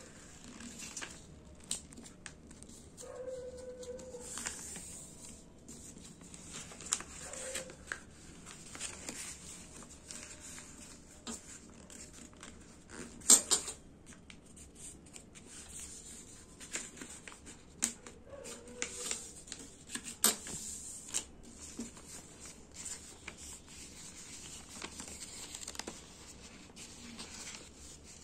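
A sheet of paper being folded and creased by hand into a paper aeroplane: irregular rustling and crisp crinkles as the folds are pressed flat, with a few sharper paper snaps, the loudest about 13 seconds in.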